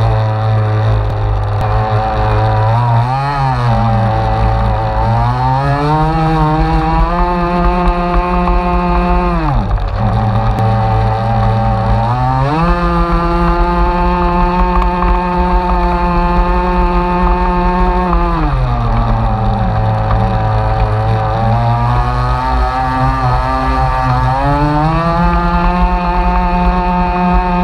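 Bonzi RC boat's motor heard from on board the hull, running loud and steady: its pitch climbs and holds as the throttle opens, drops back about ten seconds in, climbs and holds again, falls back again about two-thirds through, and rises once more near the end.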